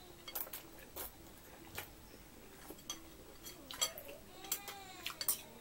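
Metal chopsticks clicking against a glass bowl while a man eats ramen noodles, with faint slurping and mouth sounds; scattered light clicks and a short pitched sound from the mouth near the end.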